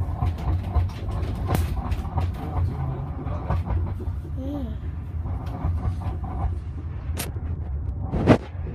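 Inside the cabin of a Heathrow ULTra pod, a small rubber-tyred battery-electric transit car, running along its guideway: a steady low rumble with scattered clicks and rattles. A sharp knock near the end is the loudest sound.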